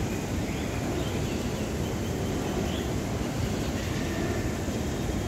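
Steady outdoor street noise: a low, even rumble of city traffic.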